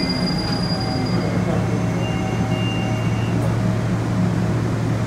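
Interior of a Seoul Subway Line 2 train braking to a stop at a station: a steady low hum from the car, with several faint whining tones from the running gear over it.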